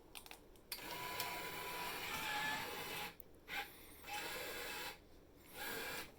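Motorised card dispenser running as it feeds out a card when its push button is pressed. It makes a quiet whirring in four bursts: one about two seconds long starting under a second in, then three shorter ones.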